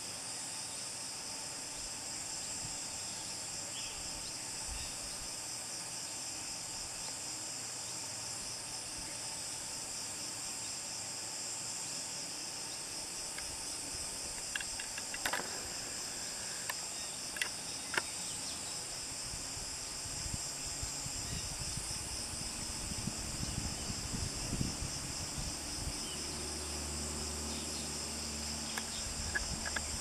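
Steady high-pitched rainforest insect chorus. A few sharp clicks come near the middle, and low bumps and rumble come in the second half.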